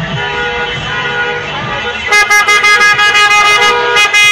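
Car horns honking in slow street traffic. Horns sound steadily at first, then from about two seconds in there is a run of loud, rapid short honks.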